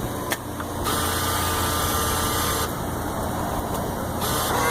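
A click, then the bill acceptor's motor whirs steadily for about two seconds as it draws in a dollar bill, over a constant low machine hum.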